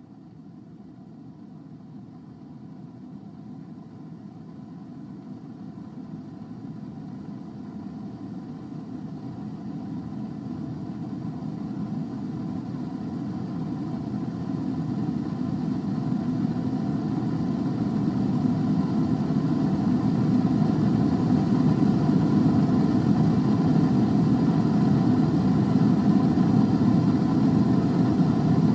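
Air fryer running: a steady fan whirr with a faint hum, fading in and growing steadily louder.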